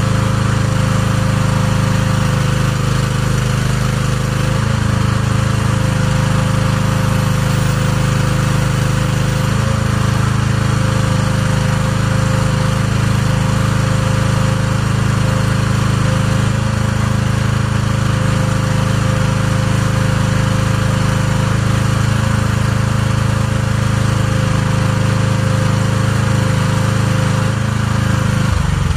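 Small mini excavator engine running hard and steady under load, with a steady whine, while its hydraulics hold up the rear of a pickup truck. The engine winds down at the very end.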